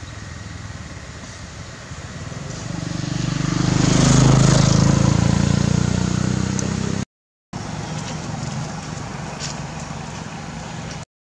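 A motor vehicle's engine passing by, growing louder to a peak about four seconds in and then fading. The sound cuts out abruptly for a moment just after seven seconds.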